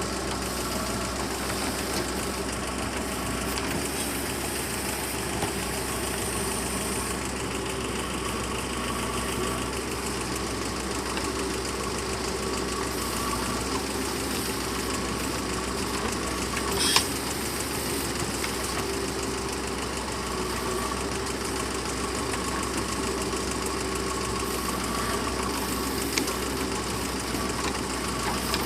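JCB 3DX backhoe loader's diesel engine running steadily, with one sharp clank about two-thirds of the way through.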